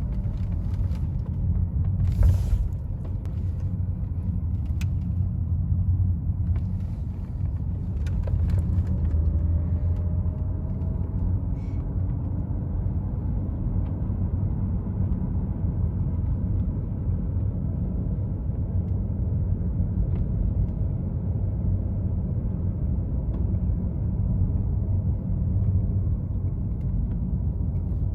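Inside the cabin of a BMW 530i E39 cruising at about 60 km/h, its straight-six turning near 2,000 rpm: a steady low engine and road rumble. A brief sharp click about two seconds in.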